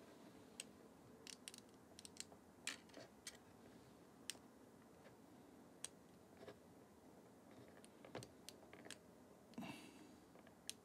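Faint, scattered small clicks and taps, a dozen or so, from fingers handling the opened body of a Nikon Z50 mirrorless camera while trying to seat a ribbon cable; otherwise near silence.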